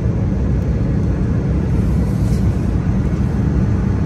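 Aircraft cabin noise heard from a passenger window seat in flight: a steady, even low rumble of engines and airflow.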